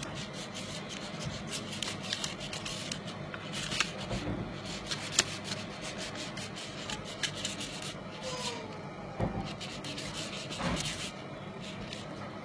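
Wooden craft stick stirring and scraping wet, glittery glue slime around a bowl: a continuous rubbing scrape with a few sharp ticks.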